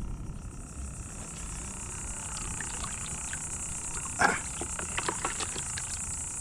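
Steady high-pitched insect chorus, with one loud sudden knock about four seconds in followed by several smaller clicks.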